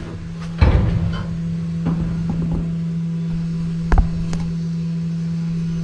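A few sharp metal knocks and clanks as a sheet-steel floor panel is handled and set in place in a truck cab, the loudest about half a second in and another about four seconds in, over a steady low hum.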